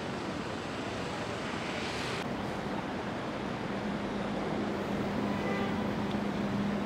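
Steady outdoor city noise of street traffic. About two seconds in, after a cut, it turns to the wash of a shallow stream running over rocks with traffic behind it, and a steady low hum joins.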